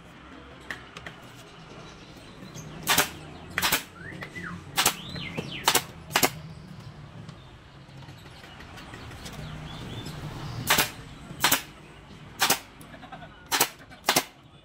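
About ten sharp single knocks at irregular intervals, half a second to several seconds apart, from work on a bamboo chair frame. A faint bird chirp is heard near the middle.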